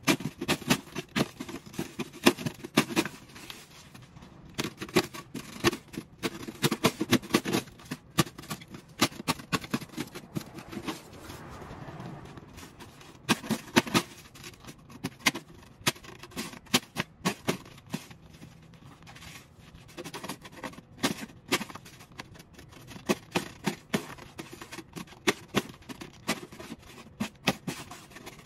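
Snow shovel scraping and knocking across snow on a wooden deck, in many short, irregular strokes and clicks.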